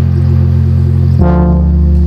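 Electronic pop music intro: a loud, sustained bass synth with a new note about a second in, no vocals.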